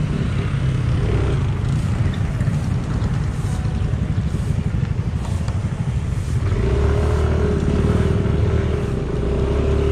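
Motorcycle engine running steadily. About six and a half seconds in, a second steady engine hum joins it.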